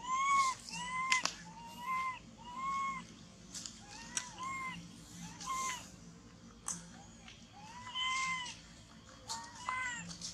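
Baby long-tailed macaque crying for its mother: a series of about ten short coo calls, each arching up and back down in pitch, spaced irregularly with brief gaps.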